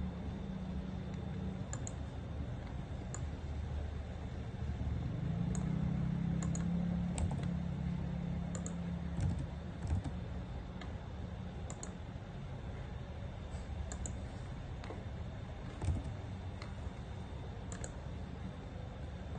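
Scattered clicking at a computer, a sharp click every second or two, over a steady low hum that swells for a few seconds in the middle.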